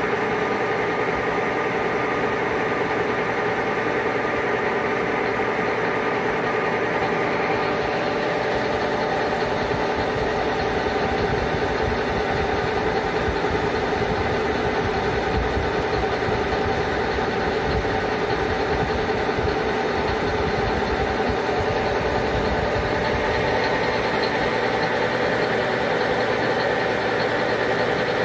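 Metal lathe running near its top speed on a variable-frequency drive, spinning an end mill in its chuck: a steady machine hum made of several tones. The highest hiss drops away about eight seconds in and comes back near the end.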